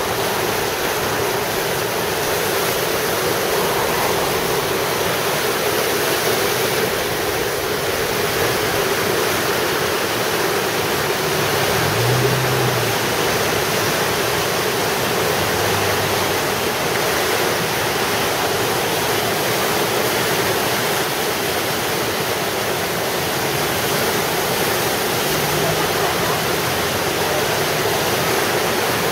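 River in flash flood: fast, muddy floodwater rushing and churning through standing waves, a loud, steady rushing noise that does not let up.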